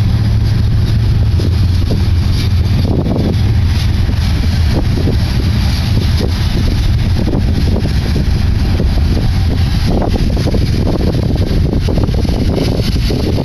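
Freight cars of a slow-moving BNSF manifest train rolling past, a steady low rumble of wheels on the rails with short irregular clicks and clatter, mixed with wind on the microphone.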